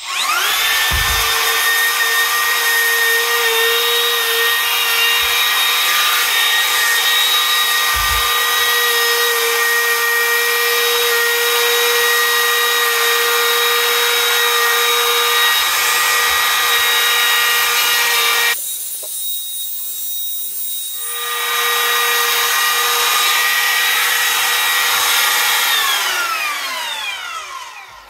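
Handheld trim router spinning up with a rising whine, then running at a steady high whine as it cuts along the edge of a plywood cutout. It drops in level for a couple of seconds about two-thirds through, and winds down with a falling whine near the end.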